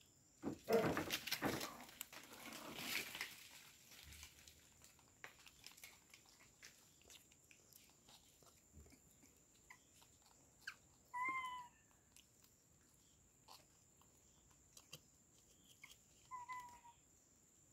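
A young bonnet macaque being hand-fed: a burst of rustling and crackling about a second in, faint scattered clicks of handling and chewing, and two short clear squeaky calls, one in the middle and one near the end.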